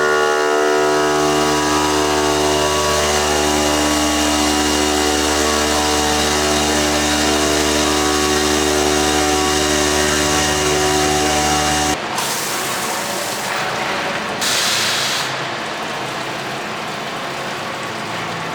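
CNC working centre running with a steady whine of several tones for about twelve seconds, which then cuts off abruptly into a noisy hiss. A louder burst of hiss comes a couple of seconds later.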